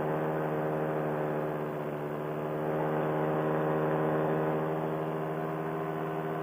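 Paramotor engine and propeller running at a steady cruise throttle, an even droning hum with a slight swell about halfway through.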